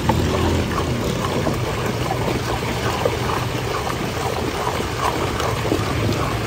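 A long metal ladle churning crushed ice in milk inside a large steel pot: steady slushy sloshing with many small scattered clinks of ice, over a constant low hum.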